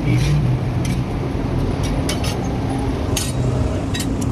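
Sharp metallic clinks of hammering on steel at a forge, coming about two or three a second at uneven spacing, over a steady low hum.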